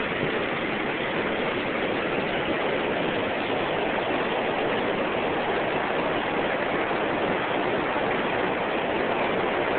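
Floodwater of an overflowing stream rushing steadily over ground and around a low footbridge, a continuous even rush of water.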